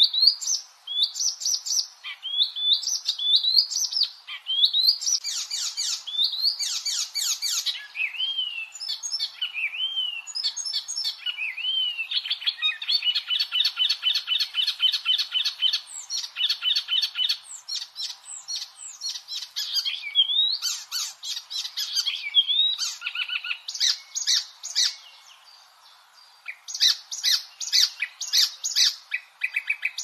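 A Hippolais warbler singing a fast, varied, chattering song: rapid runs of repeated notes mixed with short rising whistles, phrase after phrase, with a brief pause near the end.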